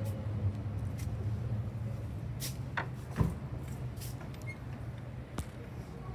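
A few light clicks and knocks, one sharper knock at the very end, over a steady low hum.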